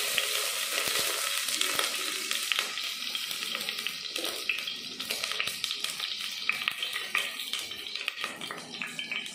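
Cooking oil sizzling and crackling as it heats in a pot. The dense crackle thins out into scattered pops toward the end.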